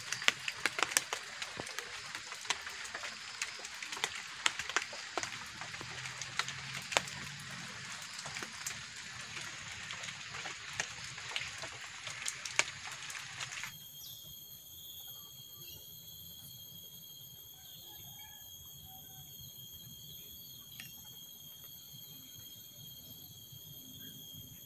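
Heavy rain falling on a tarpaulin shelter, with many sharp drip ticks. About halfway through it cuts off suddenly, and insects drone steadily at several high pitches, more quietly.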